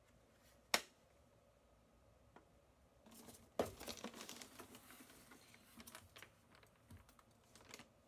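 A single sharp click just under a second in, as a small plastic case is handled. From about three seconds in, irregular rustling and crinkling of packing peanuts and plastic wrap as hands dig through a cardboard box, with a few small knocks.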